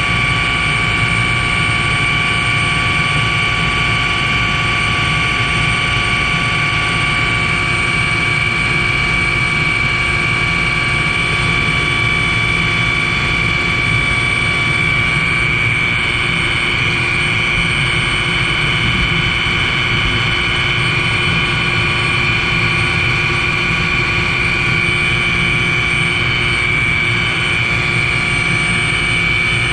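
Helicopter in flight: a steady engine and rotor noise with a high whine held at one pitch throughout.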